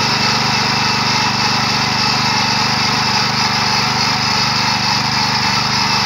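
Yağmur YET 300 walk-behind tiller running steadily, its small engine working as the rotary tines churn through garden soil.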